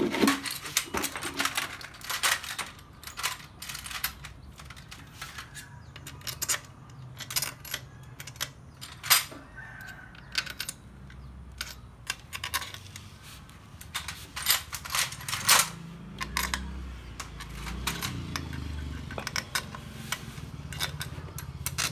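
Irregular metallic clicks and clinks of hand tools and small steel nuts and screws being handled and fitted on a motorcycle engine during reassembly.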